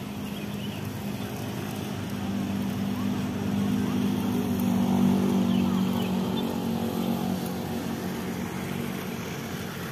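Road traffic: a motor vehicle's engine passes close by, growing to its loudest about halfway through and then fading, over a steady background of traffic noise.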